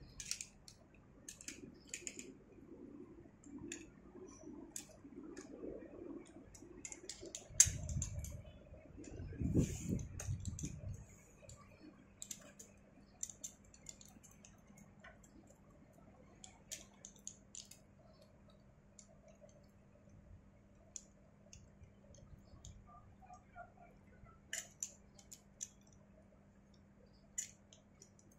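Metal rope-rescue hardware clicking and clinking as an ascender and carabiners are clipped and handled on the rope, in scattered short clicks throughout. A louder knock comes about seven seconds in, followed by a few seconds of low rumbling.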